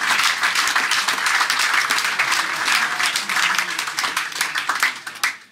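Audience applauding, a roomful of hands clapping with a few voices underneath, dying away near the end.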